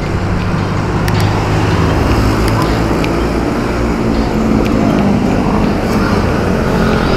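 Road traffic noise: motor vehicles running nearby, a steady loud rumble.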